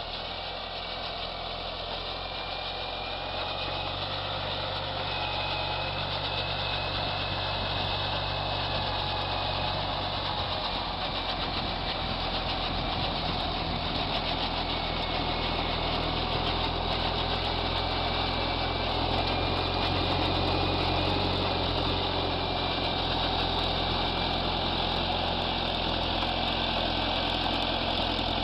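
A heavy vehicle engine running steadily, with a faint whine above it, getting a little louder over the first few seconds.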